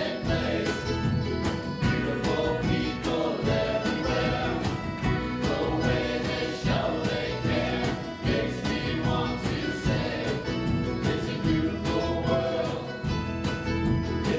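Music with a choir singing over a steady beat.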